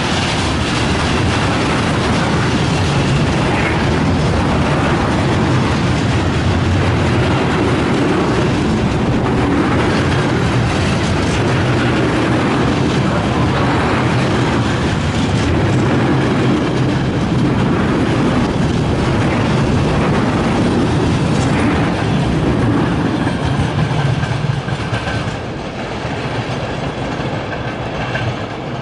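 Container freight train passing close by: a loud, steady rumble and clatter of wagon wheels on the rails, easing off in the last few seconds as the final wagons go by.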